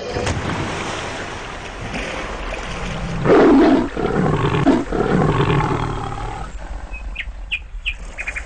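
A big-cat roar sound effect: a long roar that swells to its loudest about three and a half seconds in and dies away by about six and a half seconds. Birds chirp in short, high calls over the last second and a half.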